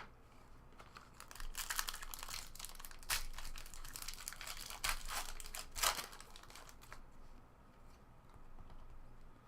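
Crinkling and rustling of trading cards and their packaging being handled, a run of short scrapes and crackles that is busiest from about a second and a half in to about six seconds, then dies down.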